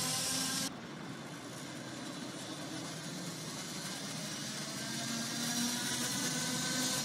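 City street traffic: a steady hum and hiss of vehicles with a faint engine-like drone. The high hiss drops off abruptly under a second in, then the sound grows gradually louder over several seconds as a vehicle draws near.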